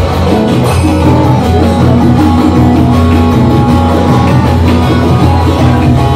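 Loud music featuring a plucked string instrument, playing steadily without a break.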